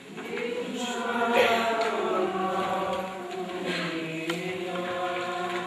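A group of voices singing a slow, wordless chant in long held notes, several pitches sounding together. It swells in over the first second and holds steady.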